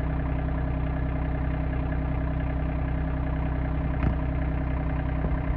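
RK25 compact tractor's diesel engine running steadily, with a single clunk about four seconds in.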